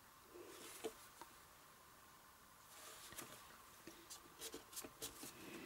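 Faint rustling and a few small taps of paper card stock being handled.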